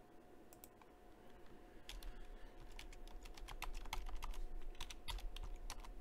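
Typing on a computer keyboard: irregular keystroke clicks, sparse at first and coming faster from about two seconds in.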